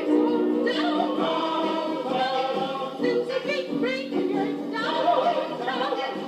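Music with several voices singing together, thin-sounding with no bass.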